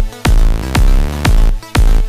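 Electronic dance music with a heavy kick drum on a steady beat, about two beats a second, over a deep bass line.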